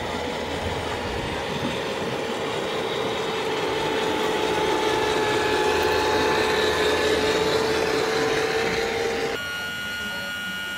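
Large radio-controlled model Scania tow truck driving, a steady whine over background noise that grows louder toward the middle. About nine seconds in the sound cuts to a quieter steady hum with a few high tones.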